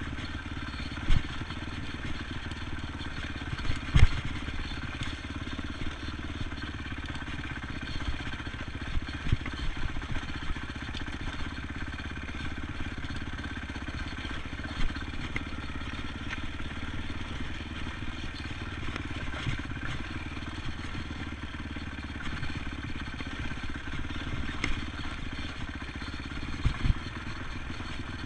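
ATV engine running steadily, with a few sharp knocks, the loudest about four seconds in.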